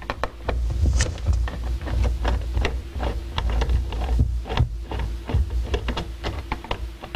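Irregular clicks, taps and scrapes of a Phillips screwdriver and hands working the screws of a plastic hot tub control panel, over a low rumble and a faint steady hum.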